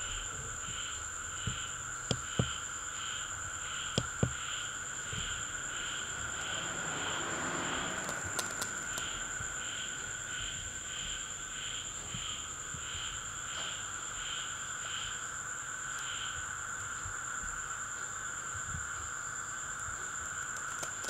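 Night insects: crickets chirping in an even rhythm about twice a second over a steady high-pitched trill, with a few faint clicks in the first few seconds.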